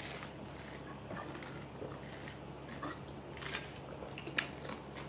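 A person drinking from a small bottle and swallowing: a few soft mouth clicks and swallows over a faint steady low hum.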